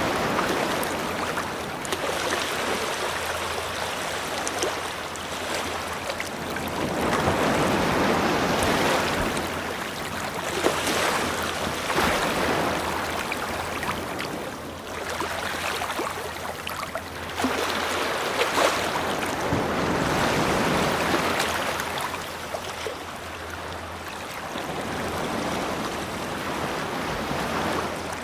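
Ocean waves washing onto a beach, the surf swelling and easing in a slow rhythm every several seconds, with a light fizzing crackle as the water breaks.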